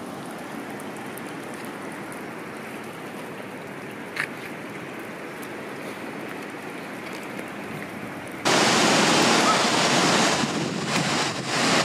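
Floodwater rushing in a steady roar, with a brief click about four seconds in. About eight and a half seconds in, the rush jumps suddenly much louder and brighter, with wind buffeting the microphone.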